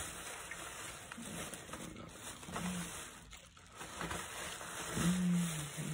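A man's short, low, wordless vocal sounds, the longest about five seconds in, over soft rustling of plastic lure packaging as the fishing lures are taken out.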